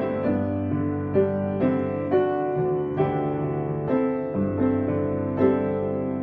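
Piano playing a gentle accompaniment, a new chord or note struck about twice a second.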